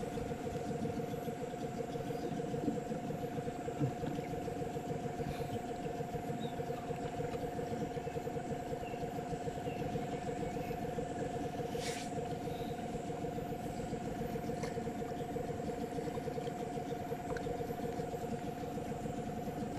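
A motor running steadily at constant speed: a continuous hum over a rough low rumble, with one brief click about twelve seconds in.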